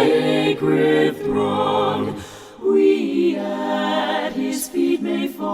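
Voices singing a hymn a cappella in parts, with no instruments, and a short breath pause about two seconds in.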